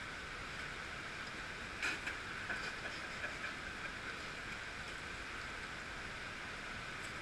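Steady rush of a shallow gorge stream running over rocks, with a few light clicks and knocks about two seconds in.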